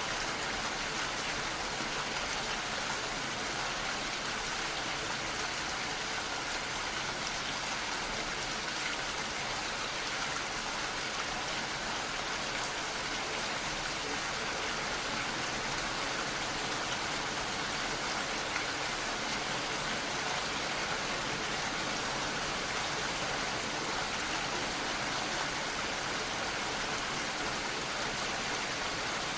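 Steady rain falling: an even, unbroken hiss of many drops, with no pauses or single loud strikes.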